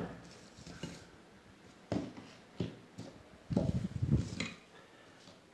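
Small hair-dryer motor parts handled while a carbon brush is fitted into its holder: a few sharp clicks and knocks, then a short rattling clatter about three and a half seconds in.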